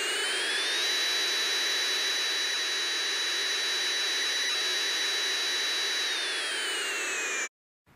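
Jet aircraft engines running: a steady rush of noise with a high turbine whine that rises over the first second, holds, then falls away near the end before the sound cuts off abruptly.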